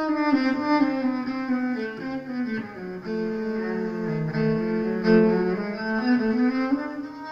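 Solo cello, amplified through a reverb effects pedal, playing a bowed melodic line that steps down in pitch, holds low notes, and climbs back up near the end.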